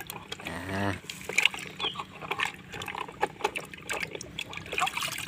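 Water splashing and sloshing in a tub as a plastic toy truck is washed by hand, with light knocks and clicks of the plastic. About half a second in comes a brief pitched, squeak-like sound.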